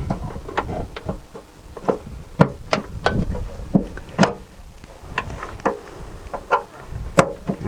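Irregular sharp clicks and knocks of hard plastic as the clip wings holding a Saab 9-3 shark-fin antenna base are pressed and worked loose.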